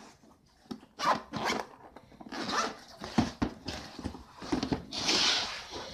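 Zipper of a hard-shell action-camera case being pulled open in a series of quick, uneven pulls.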